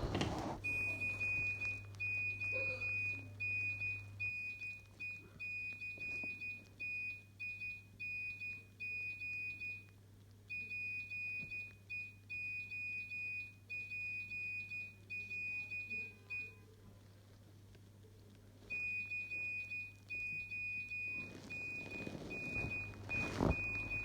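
Nokia 1650 mobile phone playing a ringtone through its small speaker: a fast melody of short, high, thin beeps that breaks off for about two seconds after some sixteen seconds and then starts over.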